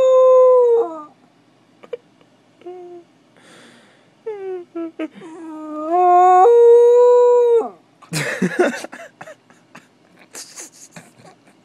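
Puppy howling up close: a long howl that ends about a second in, a few short yelps, then a second howl that rises in pitch and holds before cutting off. Near the end comes a short burst of rustling noise and a few faint clicks.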